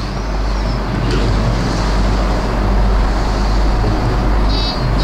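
Steady, loud hiss with a low hum underneath and no distinct ball strikes, with a faint, brief high warble near the end.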